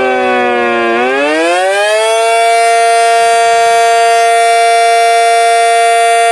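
Small "mini cyclone" siren wailing loudly. Its pitch falls, then from about a second in rises for a second and holds a steady high tone.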